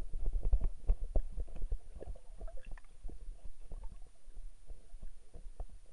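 Muffled underwater sound from a submerged action camera: a low rumble of moving water against the housing, with many quick clicks and knocks.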